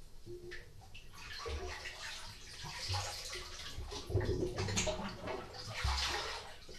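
Sea water surging in and out of a small rock cave at the waterline, the sea's 'breathing': an uneven wash of water that swells and falls, with low thumps, loudest about four seconds in.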